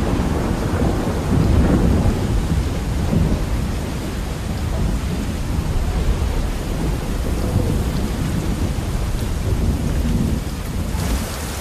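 Thunderstorm: a steady hiss of rain with deep thunder rumbling, swelling and fading. Near the end the rain hiss grows brighter.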